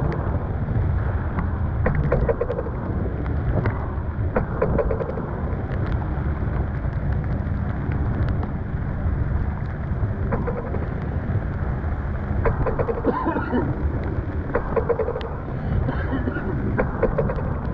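Storm wind buffeting the microphone and water rushing past a sailboat's hull, a dense steady roar, with scattered ticks of spray and rain striking close by.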